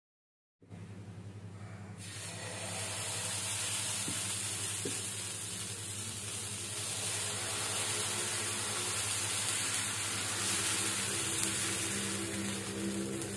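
Dosa batter sizzling on a hot nonstick tawa as it is ladled on and spread in circles: a steady hiss that sets in about two seconds in, with a low hum underneath.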